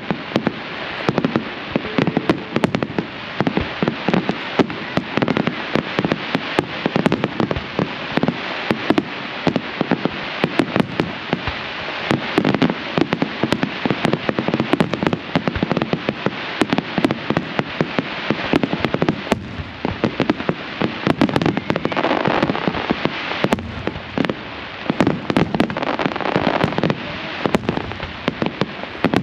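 Fireworks display: a continuous, rapid string of bangs over steady crackling, many reports a second with no pause.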